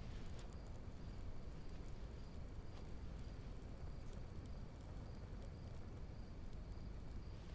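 Faint night ambience: crickets chirping in short regular pulses over a low steady rumble.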